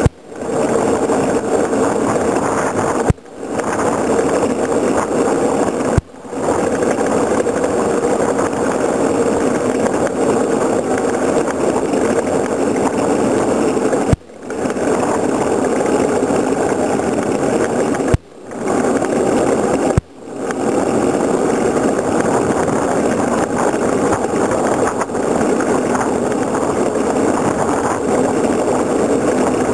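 Steady rushing rumble of a wooden soapbox cart's wheels on asphalt, mixed with wind, heard from a camera on the cart as it coasts downhill. About six sharp knocks, each followed by the sound dropping away and swelling back within about a second.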